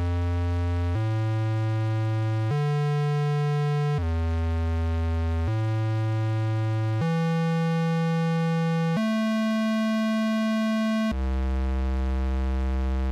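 Oscillator of a 1V/Oct The Centre Eurorack synth module, set to a triangle wave, played from a MIDI keyboard. It sounds a run of low held notes joined without gaps, each lasting about one and a half to two seconds. The notes step mostly upward in pitch, then drop back to the lowest note near the end.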